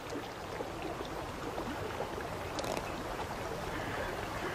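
Steady flowing water of a shallow river running over gravel, with a few faint sharp clicks about two and a half seconds in.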